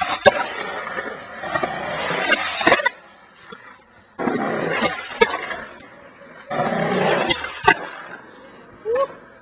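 Skateboard on concrete: polyurethane wheels rolling and trucks grinding along concrete ledges, with sharp clacks of the board popping and landing. The sound breaks off and starts again abruptly three times, one trick after another.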